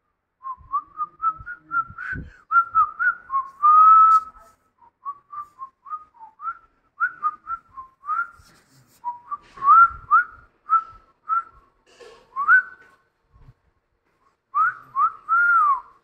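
A person whistling through the lips: a string of short, chirpy notes, many sliding upward in pitch, in little runs with brief pauses between them.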